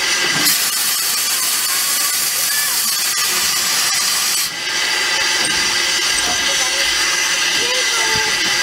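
Narrow-gauge saddle-tank steam locomotive Welsh Pony hissing steam loudly and steadily, with a brief dip about four and a half seconds in.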